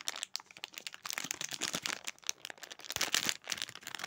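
Clear plastic blind-bag wrapper crinkling and crackling in irregular bursts as it is handled and opened by hand to get at the mystery toy inside.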